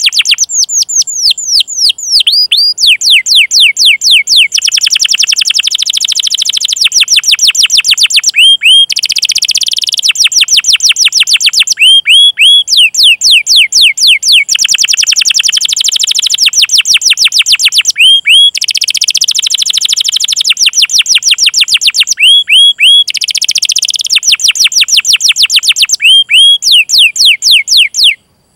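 Canary singing: long fast series of repeated downward-sweeping 'cuit cuit' chirps, about six a second, alternating with rapid buzzy rolling trills. The song runs almost without a break and cuts off suddenly near the end.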